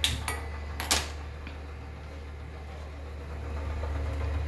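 Two sharp clicks about a second apart as a handheld spark gas lighter is worked at a gas stove burner, over a steady low hum.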